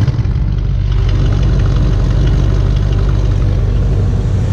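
A 1964 Chevrolet Impala's engine idling steadily, a loud low rumble through its exhaust as it is before Cherry Bomb mufflers are fitted.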